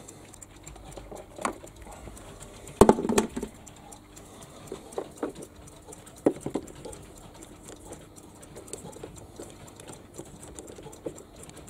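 Scattered clicks and knocks as a black plastic knob and shroud are handled and fitted on a rotary MAINS/OFF/GEN changeover switch, the loudest a sharp click with a brief rattle about three seconds in. A faint steady hum starts about three and a half seconds in.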